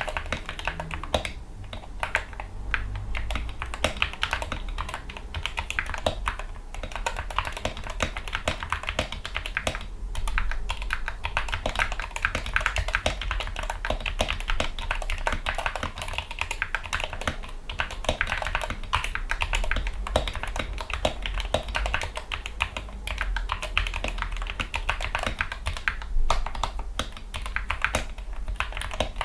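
Typing on a Gamakay MK61 mechanical keyboard fitted with lubricated Gateron Yellow optical linear switches, PBT keycaps and foam dampening: a rapid, continuous run of keystrokes with a few brief pauses.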